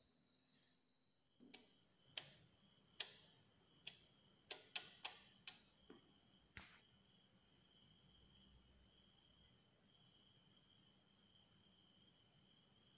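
Sharp plastic clicks and taps, about ten in quick succession over five seconds, as a Cona modular switch-board cover plate is pressed and snapped onto its frame. A faint steady high tone runs underneath.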